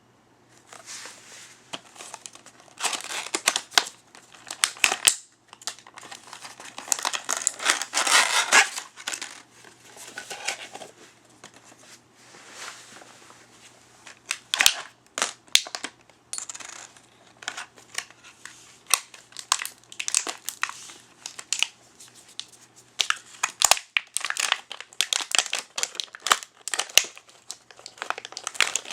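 Plastic and cardboard toy packaging being handled and crinkled open, with dense crinkling spells and many sharp plastic clicks and crackles.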